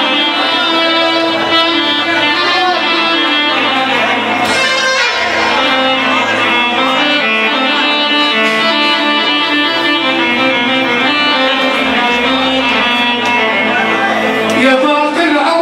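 Instrumental music from a live band: a plucked-string melody over a bass line whose notes change every second or two, with no singing.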